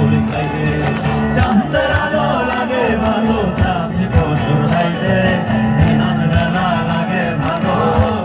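A live band plays a Bengali folk-rock song loudly through a concert PA, recorded from the crowd. A sung melody wavers over guitar and a steady drum beat.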